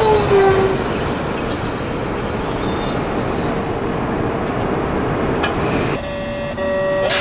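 Toyama Chiho Railway 8000-series tram with Toyo GTO-VVVF inverter drive slowing to a stop: its inverter whine falls in pitch and dies away about half a second in, then the wheels rumble over the track, with thin high squeals for a few seconds. The rumble drops near the end and a steady tone sounds.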